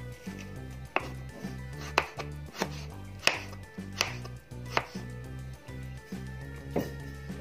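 Kitchen knife cutting carrot on a plastic cutting board: about seven sharp, separate knocks of the blade striking the board, roughly one a second, with a longer gap before the last one.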